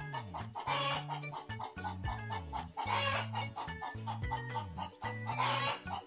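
Background music with a steady beat and a repeating bass line, with a loud crashing hit about every two seconds. Domestic hens clucking can be heard along with it.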